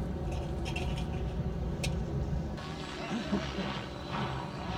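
Background model-helicopter noise: a steady low hum, with a hissing rotor and turbine rush that comes in about halfway through. A few light clicks sound in the first two seconds.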